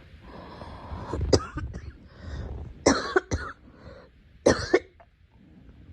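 A girl coughing: three sharp coughs about a second and a half apart, with quieter breathing between them.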